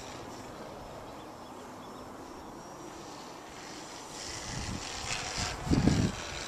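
Distant, steady drone of a T-28D aircraft flying overhead. From about four seconds in, wind buffets the microphone in gusts, loudest near the end.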